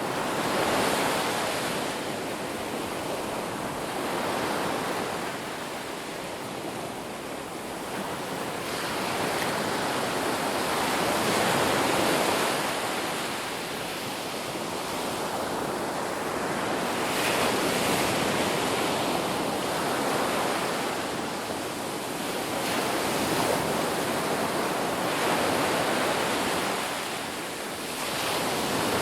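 Ocean waves breaking and washing up on a beach, a continuous surf hiss that swells and recedes every few seconds.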